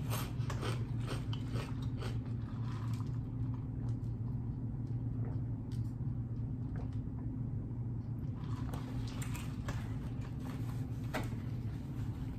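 Close-miked chewing and wet mouth sounds of a man eating a tuna wrap, in clusters of short clicks near the start and again later, over a steady low hum.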